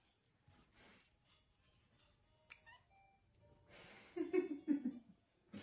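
Faint tinkling of a small cat-collar bell, a few light taps a second, then near the end a short run of high-pitched vocal sounds.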